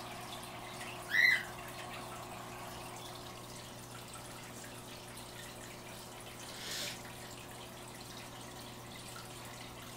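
Steady hum and soft water trickle of the running aquarium filter. About a second in, a cockatiel gives one short chirp, and a brief soft hiss comes a little before seven seconds.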